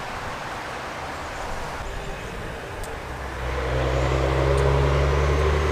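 A low, steady engine hum comes in about three seconds in and grows louder, over a faint outdoor hiss.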